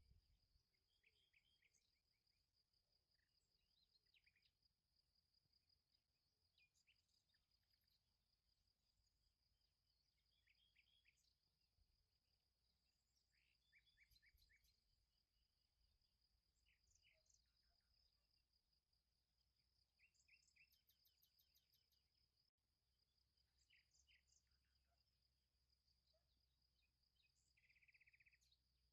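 Very faint outdoor ambience: an insect, likely a cricket, trilling steadily on one high pitch, with scattered short bird chirps and, near the end, a brief buzz.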